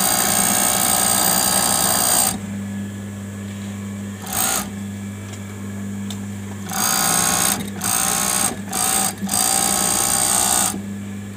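Juki 4-thread industrial overlock machine (serger) running at speed as it stitches a test seam on knit fabric: one long run at the start, a brief blip around four seconds in, then several short stop-start runs from about seven to eleven seconds. A steady low hum continues between runs.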